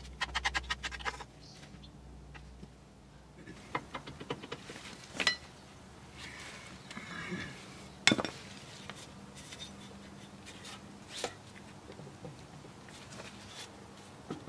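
Hands scraping and knocking dirt off a mini excavator's steel track frame. A quick run of scratchy strokes comes first, then scattered metallic clinks and knocks, the loudest about eight seconds in.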